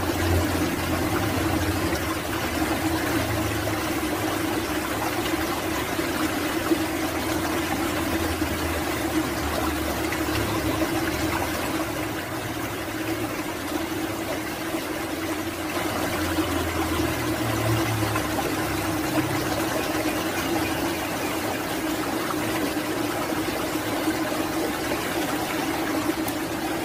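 A steady rushing noise with a low hum under it, unbroken throughout.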